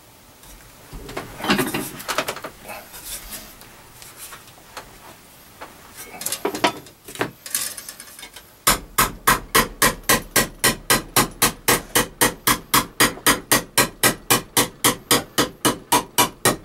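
A ball-peen hammer strikes an aluminium strip clamped in a steel bench vise, bending a flange over in a steady run of sharp blows, about three a second, that starts about halfway through. Before that come a few scattered metal clanks and rattles as the vise is tightened on the strip.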